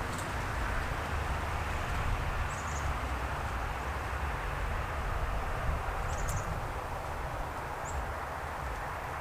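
Steady outdoor background noise with a low rumble, with short high bird chirps three times.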